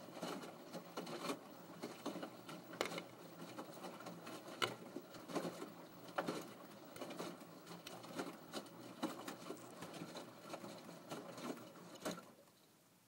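Washing machine drum turning with a teddy bear tumbling inside: a patter of irregular knocks and clicks that stops about twelve seconds in.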